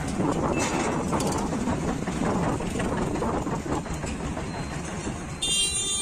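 Road traffic noise heard while riding along a busy road: a steady mix of vehicle engines and rushing road noise. Near the end comes a short, high-pitched vehicle horn honk.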